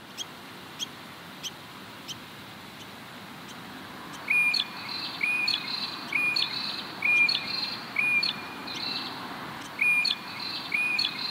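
A bird repeats a short call about once a second from about four seconds in: a brief steady note, then a sharp upward flick, over a steady background hiss. Faint sharp ticks come before the calls begin.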